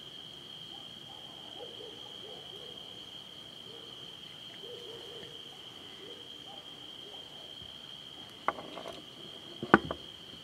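A steady high-pitched chorus of night insects, with an owl hooting in several short phrases. Near the end come two sharp knocks, the second louder, like something bumped against the camera or gear.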